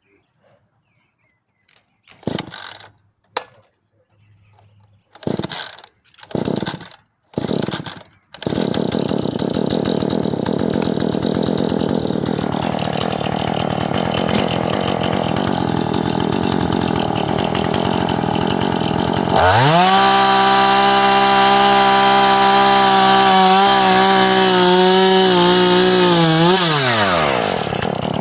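Two-stroke chainsaw pull-started: several short pulls and sputters, then the engine catches about eight seconds in and idles. About twenty seconds in it is revved to full throttle and held there with small dips for about seven seconds, then drops back to idle near the end and is revved again.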